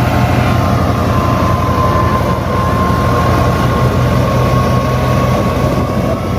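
A vehicle's engine running steadily and loudly, with a fast, even firing beat and a thin steady whine above it.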